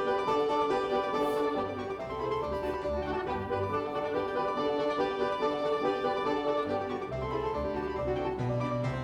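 Background music: a classical-style piece led by piano or keyboard, with strings entering near the end.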